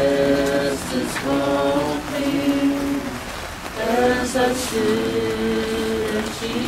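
A group of voices singing a slow hymn in harmony, with notes held about a second each.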